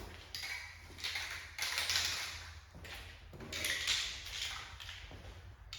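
Aerosol spray can of primer hissing in about five short sprays, each roughly half a second to a second long, with brief pauses between them.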